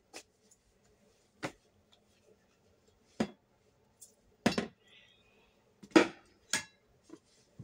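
Short, sharp knocks and clatters of objects being handled and moved about on storage shelves, about six separate hits spaced a second or so apart, the loudest about six seconds in.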